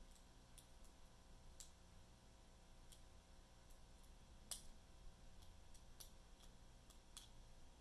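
Faint, irregular clicks of a metal lock pick and tension wrench working the pins inside a small ABUS padlock, with one sharper click about four and a half seconds in.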